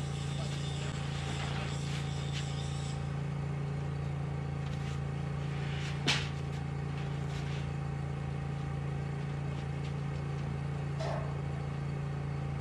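A machine, most like an engine, running steadily with a low even hum, and one sharp knock about six seconds in.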